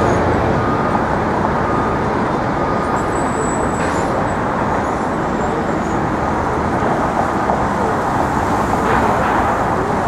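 Steady city street traffic noise, a continuous hum of passing cars and buses.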